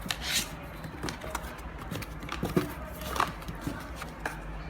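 A few scattered light knocks and taps, irregular, the clearest about two and a half and three seconds in, over a steady low hum.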